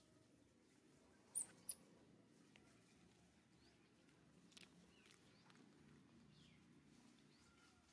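Infant monkey giving two short, high-pitched squeaks in quick succession about a second and a half in, then a fainter one a few seconds later, over near silence.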